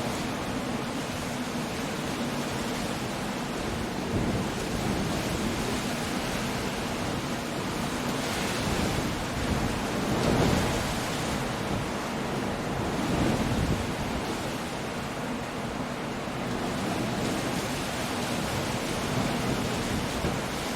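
Coastal storm ambience: steady rain and wind mixed with waves breaking on rocks, swelling louder a few times, most strongly about ten seconds in.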